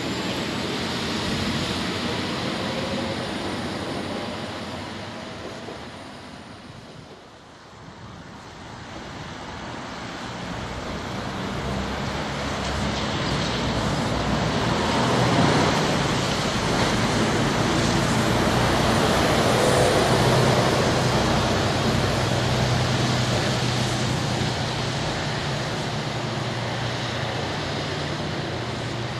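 Diesel railcar pulling away, its engine and running noise fading over the first seven seconds or so. Then a broad rumble swells up and holds, with a low steady engine hum in it, as a train nears from the distance.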